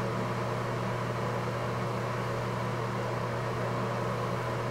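A steady mechanical hum, with a low droning tone and an even hiss that do not change.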